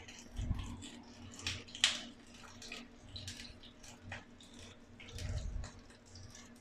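A little oil sizzling and crackling in a pan under a banana-leaf parcel of prawns steaming on low heat, with irregular small pops and one sharper snap about two seconds in. A faint steady hum and a couple of dull low thumps lie underneath.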